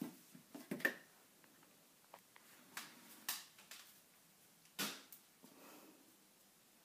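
A few separate sharp clicks and taps from a cat's paws and claws on a tile floor as it stumbles sideways with tape stuck to its side. The loudest taps come just under a second in and again just under five seconds in.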